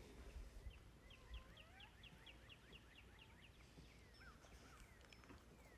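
Near silence outdoors, with a faint bird calling in a quick, even series of short chirps for a couple of seconds and a few scattered whistles later.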